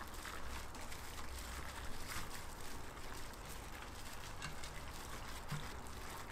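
Wet, irregular squishing and smacking as a plastic-gloved hand mixes chicken feet in a thick spicy sauce in a stainless steel bowl. A steady low hum runs underneath.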